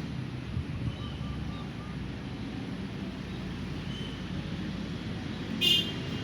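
Steady low rumble of distant road traffic, with faint bird chirps: a quick row of about five short notes, then single high notes. Near the end comes one brief, louder, shrill sound.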